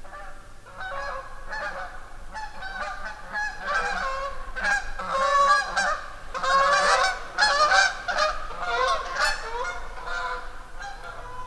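A flock of geese honking, many short calls overlapping one another, busiest in the middle of the stretch.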